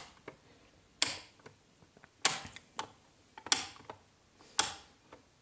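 A 6-amp rocker light switch clicked on and off about once a second, five sharp clicks in all, switching a bulb on and off to test the new switch-to-bulb-holder wiring.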